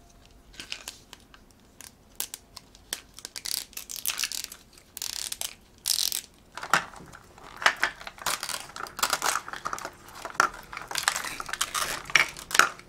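Plastic wrapping on two 5 Surprise Mini Brands capsule balls crinkling and tearing as it is peeled off by hand, with small clicks and rustles of the plastic capsules being handled and opened, busiest in the second half.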